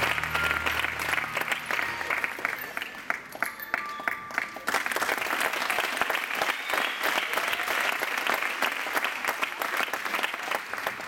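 Audience applauding, with the last of the display music fading out in the first second or so. The clapping dips briefly about four seconds in, then swells again before tailing off near the end.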